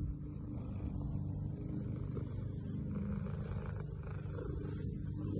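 Domestic cat purring steadily close to the microphone: a continuous, finely pulsing low rumble.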